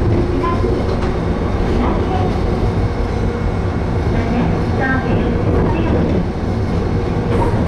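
Electric train running along the track, heard from inside the driver's cab: a steady rumble of wheels and motors.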